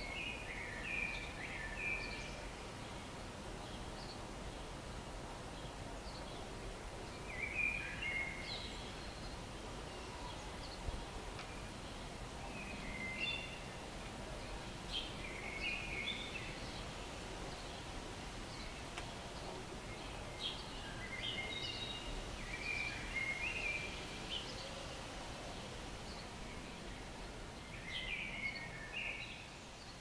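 Songbird singing short phrases of high chirping notes every few seconds, over steady outdoor background noise.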